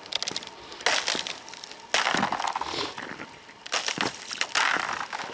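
Rubber boots crunching on thin, clear first ice, the ice crackling and cracking under the weight at about three steps.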